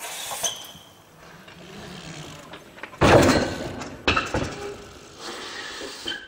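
BMX bike landing and rolling on paving: a sudden loud thud about three seconds in that dies away, then a second knock about a second later. The sound cuts off abruptly at the end.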